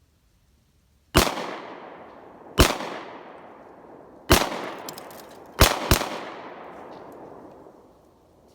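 Five 9mm pistol shots from a Glock 43, the first three spaced a second or more apart and the last two in a quick pair, each shot trailing off in a long echoing decay.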